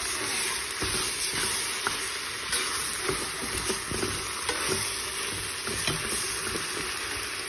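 Soaked dried eggplant sizzling as it fries in a metal pot, stirred and turned with a spoon that scrapes and taps against the pot at irregular moments.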